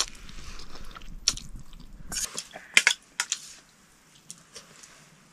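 Soup noodles being eaten: slurping and chewing, with utensils clinking against a bowl. The eating is busy for about the first two and a half seconds, then drops to a few scattered clicks.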